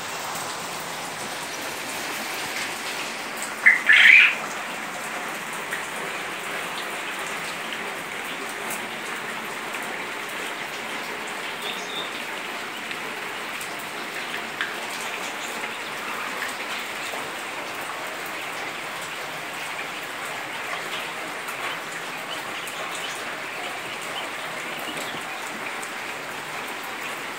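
Steady rain hiss, with quail chicks chirping now and then and one loud, brief chirp about four seconds in.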